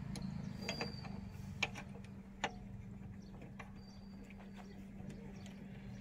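Light metallic clicks and clinks as the connecting-rod big-end cap and its bolts are fitted by hand onto the crankshaft inside the open crankcase of a VST Shakti 130DI diesel engine. The sharpest clicks come in the first few seconds and fainter ones follow, over a faint steady low hum.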